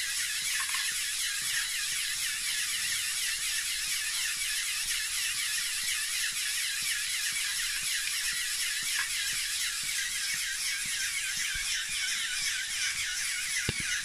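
LEGO pneumatic pumps driven by NXT/EV3 motors, running steadily with a fast, even mechanical whirr, while water jets spray from the fountain nozzles.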